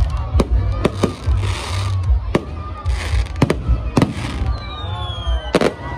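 Fireworks display: a string of sharp bangs from bursting aerial shells mixed with crackling, hissing bursts. In the last second or so, long whistles fall in pitch.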